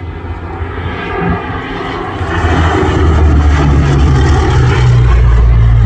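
Display aircraft flying past, its engine noise swelling to a loud, steady drone about halfway through.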